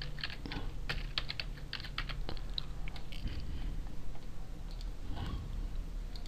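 Typing on a computer keyboard: a quick run of key clicks in the first few seconds, then a few scattered mouse clicks.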